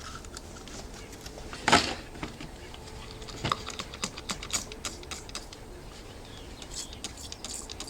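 A brief spray from an aerosol can of Ice Cutter de-icer onto a frozen padlock about two seconds in, followed by light clicks and taps from handling the lock and can.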